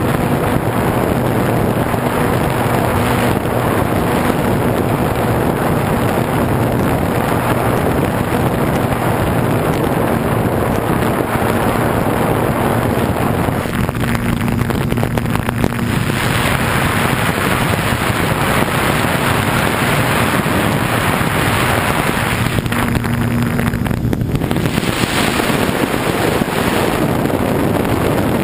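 Steady rush of wind over an RC plane's onboard camera in flight, with the plane's motor and propeller humming underneath; the sound shifts briefly a couple of times in the second half.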